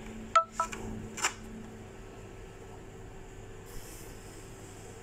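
A few sharp clicks and taps in quick succession within the first second and a half, as fruit and hard plastic packaging are handled, over a steady low hum.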